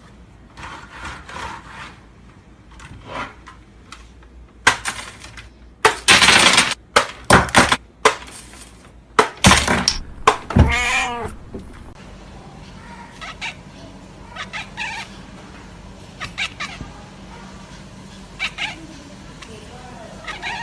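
A domestic cat meowing, mixed with several loud sudden noisy bursts about halfway through.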